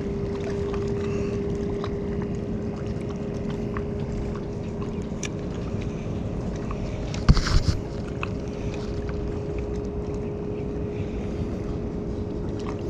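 Wind noise rushing over an action camera's microphone, with a steady low hum throughout and one brief knock about seven seconds in.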